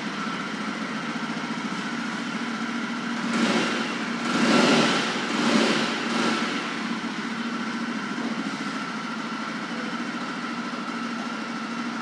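Yezdi Roadster's 334 cc liquid-cooled single-cylinder engine idling steadily through its exhaust, with a few short revs about three to six seconds in.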